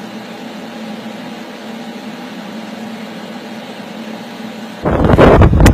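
Steady machine-like hum with several constant tones. About five seconds in, a sudden loud rush of noise takes over, with a sharp click near the end.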